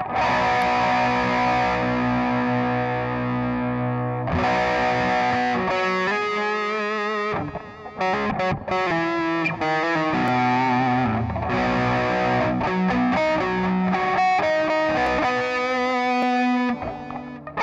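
Distorted electric guitar played through a Digitech RP55 multi-effects pedal. Held chords ring out, broken by single-note lead phrases with vibrato, and the playing dips briefly about eight seconds in.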